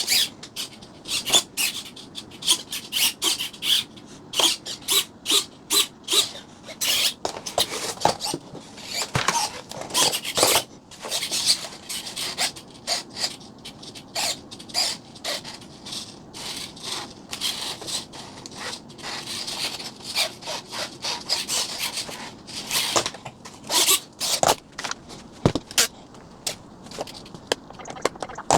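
Irregular rubbing, scraping and short squeaks of foam RC model airplane parts being handled and fitted together during assembly.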